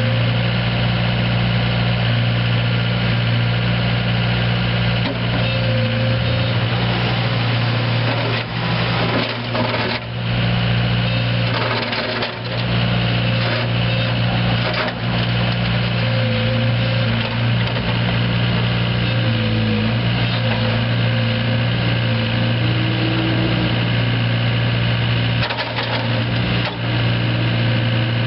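Komatsu PC75R excavator's Yanmar four-cylinder diesel engine running at a steady speed, with a few short knocks and clunks about a third of the way in, around the middle and near the end.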